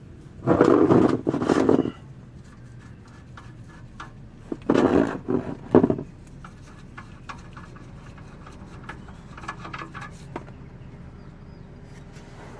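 Breaker bar on a 16 mm socket cracking a tight fastener loose under a 1997 Dodge Ram: two loud, rough bursts of straining effort a few seconds apart, followed by light clicks of the tool and fastener.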